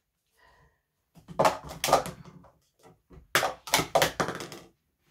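Plastic sport-stacking cups clattering and clicking against each other and the stacking mat as they are gathered and set back down in nested stacks, in two quick bursts of clicks.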